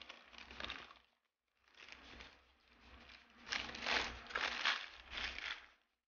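Crispy fried food crunching and crackling as it is chewed and pulled apart by hand. There are two stretches of crackling, a short one and then a longer, louder one after a brief pause about a second in.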